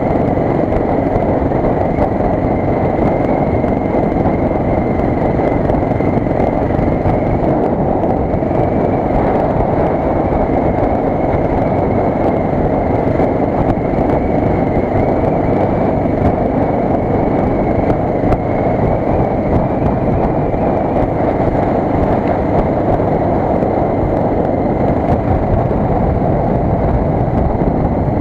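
Suzuki DR 600's air-cooled single-cylinder four-stroke engine running at a steady road speed, mixed with wind noise on the microphone. The level holds even throughout, with no gear changes or sudden events standing out.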